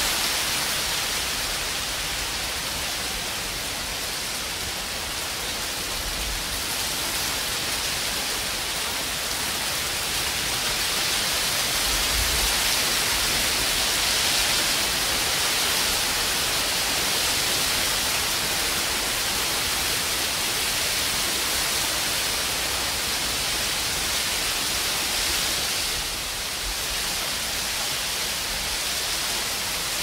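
Heavy rain and hail falling steadily, an even, dense hiss with no single strikes standing out.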